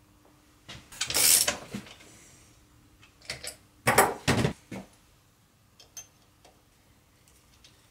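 Clattering and clinking of hard objects being handled. There is one burst about a second in, a louder cluster of knocks around the middle, then a few light ticks.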